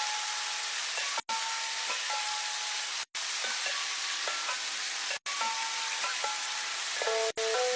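Food sizzling as it fries, a steady hiss that cuts out for an instant four times. Soft music comes in near the end.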